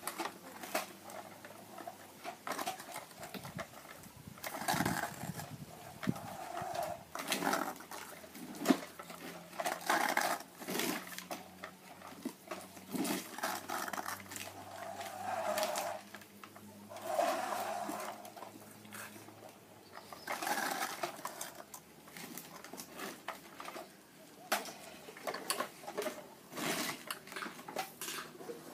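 Small electric motor of a toy vehicle whirring with a steady hum, mixed with frequent clicks and clatter of plastic toy parts. The hum stops about two-thirds of the way through.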